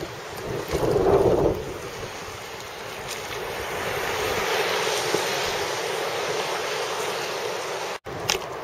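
Sea water sloshing and small waves washing around a camera held at the surface, with wind buffeting the microphone; a louder rush of water comes about a second in.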